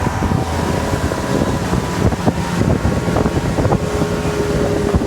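Mopar-engined pontoon boat running under way: a steady engine hum under rough wind buffeting on the microphone.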